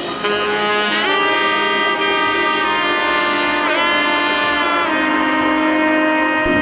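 Background music with a melody of long held notes over chords, one note sliding up into pitch about a second in and another bending just past the middle.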